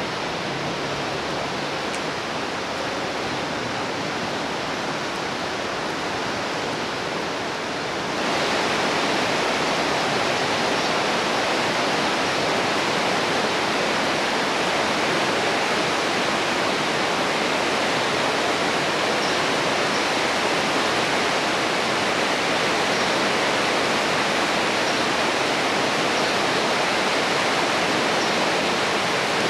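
Steady rushing of river water, an even noise with nothing standing out, which jumps louder about eight seconds in.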